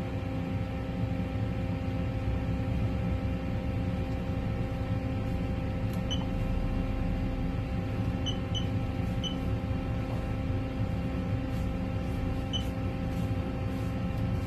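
Ultrasound scanner running with a steady electrical hum and fan noise. Five short high beeps from its controls sound in the second half, two of them close together, as measurements are taken.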